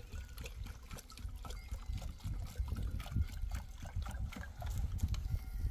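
Water trickling and pouring into a plastic jerrycan, with small knocks of the plastic can, over a low rumble of wind on the microphone.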